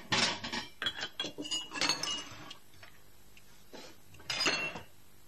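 Crockery and cutlery clinking on a table: cups, plates and spoons knocked together, in a clatter during the first two and a half seconds and another brief one about four and a half seconds in.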